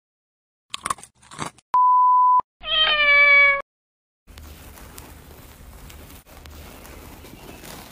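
A few short clicks, then a steady electronic beep held for under a second, followed by a single cat meow lasting about a second with a slightly falling pitch. After it comes a faint, even rustling as the skin of a loquat is peeled.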